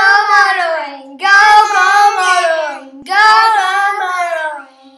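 Channel intro jingle: a high voice sings unaccompanied in three short phrases, each sliding down in pitch, and the last dies away near the end.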